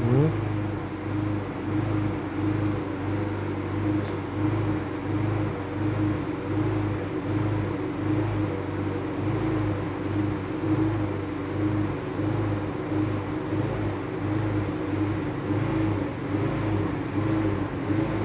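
Engine-driven generator running steadily: a constant low drone with a slight regular throb.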